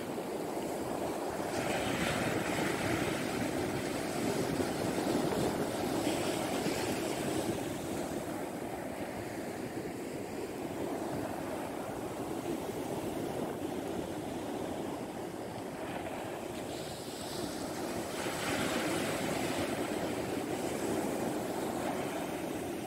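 Sea surf washing onto a beach: a steady rushing wash, swelling into louder, hissier wave breaks about two seconds in, around six seconds, and again near the end.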